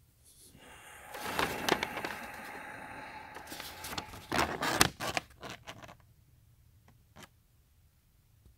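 A folded paper instruction manual rustling and crinkling as it is picked up and handled, for about five seconds, followed by two faint clicks.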